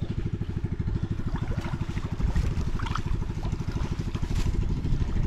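A small engine running steadily: a low drone with a fast, even pulse.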